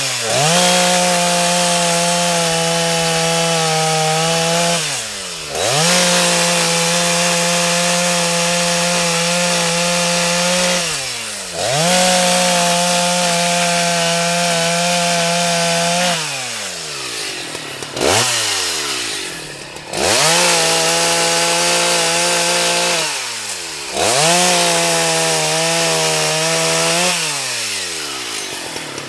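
Husqvarna 181 SE two-stroke chainsaw held at full throttle through about six cuts, a few seconds each, with the revs dropping and picking up again between cuts. It settles back toward idle near the end.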